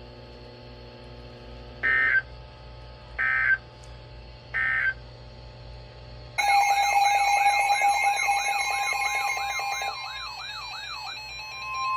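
NOAA Weather Radio alert signalling: three short squawking SAME end-of-message data bursts about a second apart, closing the watch broadcast. A few seconds later the receiver's alarm starts, a loud warbling, siren-like electronic alert over steady beeping tones, which gives way near the end to a single steady alert tone that heralds the new warning.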